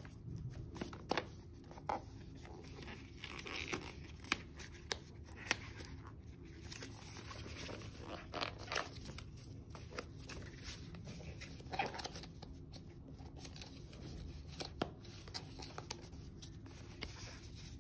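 Cardboard smartwatch box being handled and opened in gloved hands: scattered soft taps, clicks and scrapes of card, over a low steady background hum.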